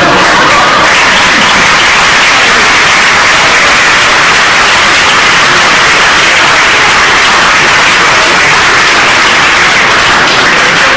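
Audience applauding steadily, starting abruptly as a recited poem ends.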